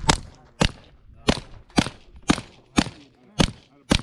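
Suppressed carbine firing a steady string of eight shots, about two a second.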